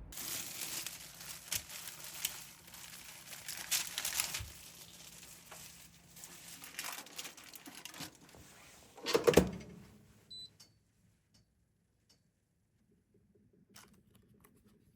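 Crinkling and tearing of packaging, handled in irregular bursts, with the loudest rustle around nine seconds in. A short high electronic beep follows, then only faint clicks.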